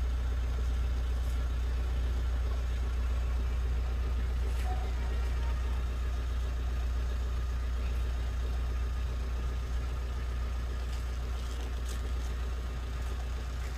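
A steady low engine hum, like a vehicle idling, with a few faint clicks over it.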